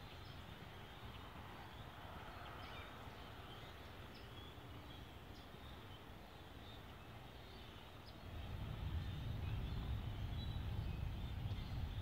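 Faint scattered calls from a distant flock of white waterbirds over a steady outdoor hiss. About eight seconds in, a low rumble comes in and becomes the loudest sound.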